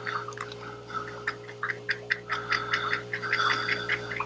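A small paintbrush tapping and scratching on paper in quick, irregular dabs as tree shapes are painted in, over a steady low hum.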